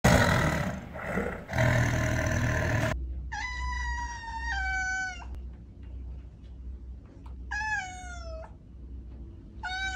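Cat meowing: after a harsh, noisy sound in the first three seconds, two long drawn-out meows, the first dropping a step in pitch partway through and the second falling, with the start of a third near the end.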